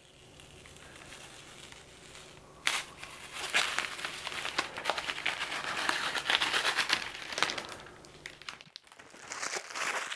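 Protective plastic film being peeled off a PEI-coated spring steel flex plate, a crackling, crinkling sound that starts about two and a half seconds in and fades after about five seconds, then crinkles again briefly near the end.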